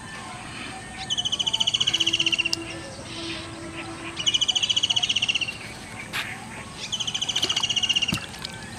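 A bird's rapid, high-pitched trill, repeated three times at intervals of about three seconds.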